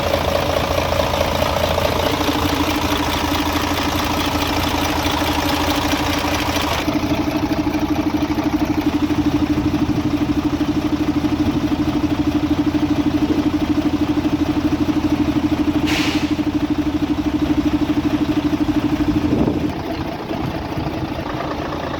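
Mercedes-Benz Actros MP2 truck's diesel engine idling steadily with an even pulsing beat. A brief sharp click comes about three-quarters of the way through, and the engine sound drops off somewhat near the end.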